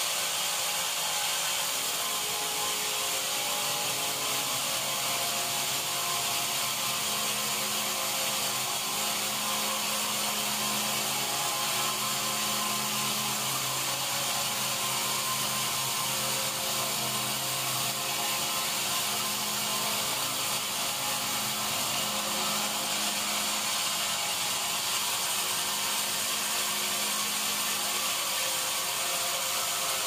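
A large band sawmill running, its blade sawing lengthwise through a mahogany log with a steady high hiss. A lower hum sets in a few seconds in and drops away near the end.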